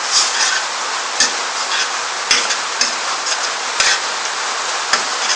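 Meat and spinach paste sizzling in hot oil in a stainless steel saucepan, with a spoon stirring through it and scraping or clinking against the pan about six times.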